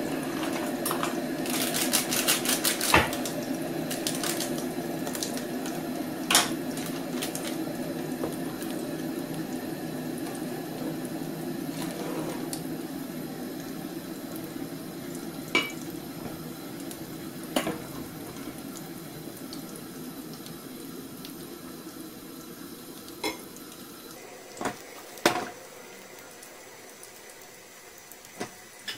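Kitchen sounds: a steady rushing noise that slowly fades, with a quick run of clinks about two seconds in and single sharp clinks of dishes and utensils every few seconds after.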